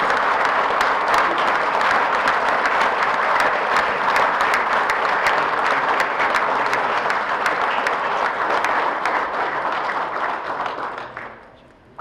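Audience applauding steadily, many hands clapping at once, dying away about a second before the end.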